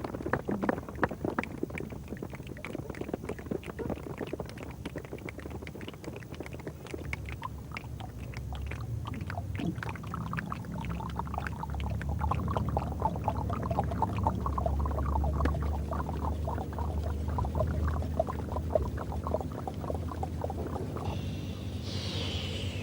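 A group of people imitating a rainstorm with their hands and bodies: a dense, irregular patter of many snaps, claps and slaps like raindrops. The patter grows heavier and fuller from about eight seconds in, then stops shortly before the end.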